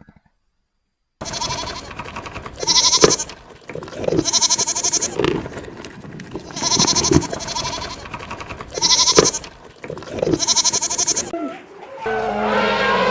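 An animal calling over and over: about five loud, wavering calls roughly two seconds apart, after a second of silence. Just before the end a different, steadier sound begins.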